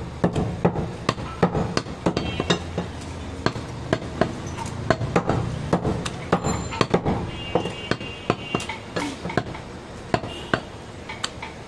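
Repeated sharp knocks of a butcher's knife chopping meat on a wooden chopping block, irregular, a few per second. A brief high ringing tone comes in about halfway through.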